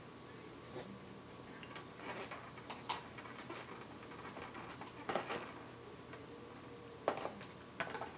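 Metal knife and fork cutting steak in a black takeout container: scattered scrapes and clicks, a few of them sharper, over a faint steady hum.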